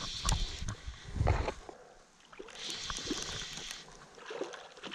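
Shallow stream water splashing and trickling over stones, with a few short knocks and some low rumble in the first second and a half, and a second spell of splashing near the middle.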